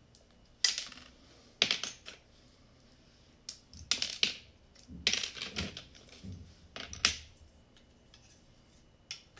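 Plastic Lego bricks clicking and clattering as they are picked through and handled, in about half a dozen short bursts of rattling with quiet gaps between.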